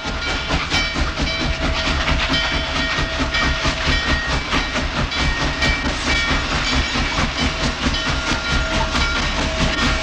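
Norfolk & Western 611, a streamlined J-class 4-8-4 steam locomotive, working past with a passenger train: a steady, loud run of rapid exhaust beats and wheel-on-rail clatter, with thin high tones that come and go.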